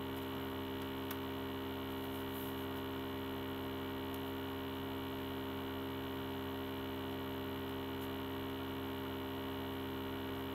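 Steady electrical mains hum, a stack of constant tones, with a few faint clicks from a plastic CD case being handled.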